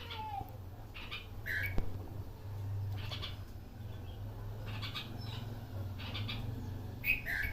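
Bulbul calling: short chirping notes, repeated every second or so, over a steady low hum.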